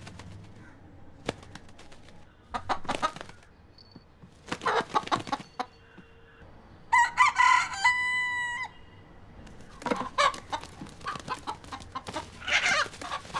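A broiler-breed rooster calling in several short bursts, with one crow about seven seconds in that ends in a long held note.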